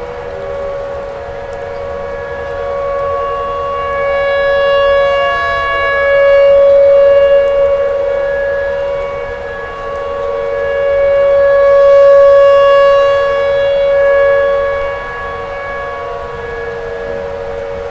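Tornado warning siren holding a steady wail. Its loudness swells and fades twice over the stretch.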